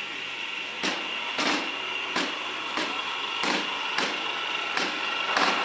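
A machine running with a steady high whine, with sharp knocks or clacks about every two-thirds of a second.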